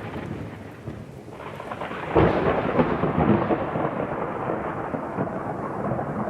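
A thunderclap about two seconds in, rumbling on over a steady hiss of rain, following the fading rumble of an earlier peal.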